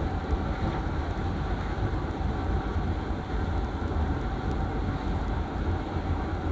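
Steady low rumble of a moving passenger train, heard from inside an economy coach, as the train runs into a station.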